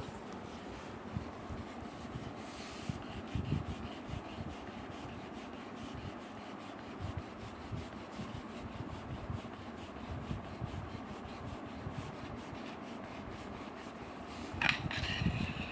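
The air rifle's shroud being unscrewed by hand from the barrel: a steady soft rubbing of metal parts turning against each other. A short metallic clink comes near the end as it comes free.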